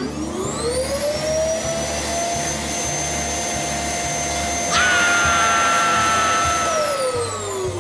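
Motor-like whirring sound effect that winds up in pitch over the first second or so, holds steady, and winds back down near the end; a higher, louder whine joins about five seconds in.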